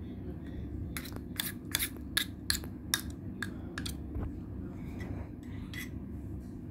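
Homemade glue-and-detergent slime being mixed by hand in a clear plastic cup: a quick run of about nine sharp clicks and squelches over roughly two seconds, then softer handling sounds.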